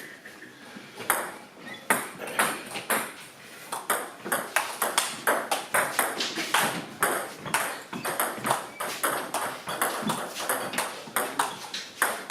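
Table tennis rally: the celluloid ball clicks off the bats and the table about two to three times a second, in a steady back-and-forth rhythm.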